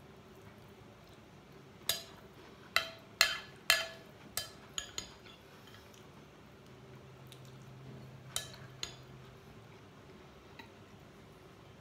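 Metal spoon clinking against a ceramic bowl: a quick run of about seven sharp clinks, each ringing briefly, then two more a few seconds later.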